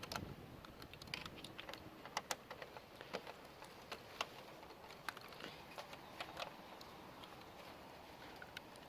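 Faint, scattered clicks and light taps at irregular intervals, a few of them sharper, from hands handling TV speaker cables and their small plastic connectors.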